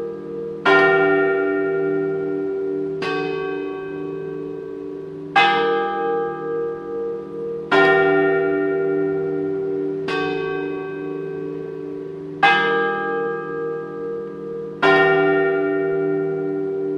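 A large church bell tolling slowly: seven strikes about two and a half seconds apart, each ringing on and still sounding when the next one falls.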